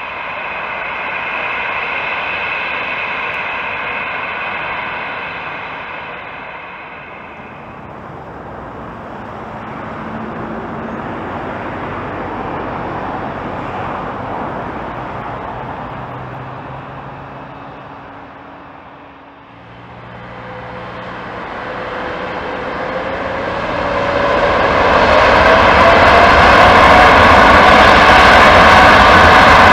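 Jet airliner engines whining and running as aircraft taxi, then the Boeing 787-9's two Rolls-Royce Trent 1000 turbofans spooling up to takeoff thrust: from about twenty seconds in a whine rises in pitch and the sound grows to a loud, steady roar that holds to the end.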